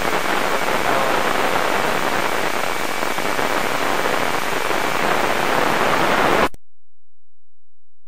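Amateur radio receiver hiss between transmissions on the space-station contact: steady, even static with no voice, cutting off abruptly to dead silence about six and a half seconds in.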